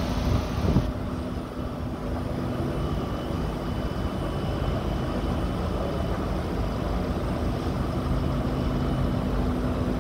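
Street traffic: a vehicle engine running with a steady low hum, and a brief louder thump in the first second.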